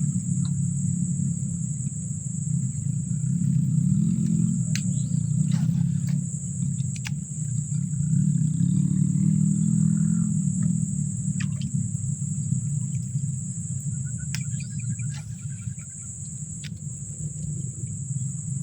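A steady high insect drone, crickets or cicadas, over a louder low rumble that swells and fades, with a few faint clicks.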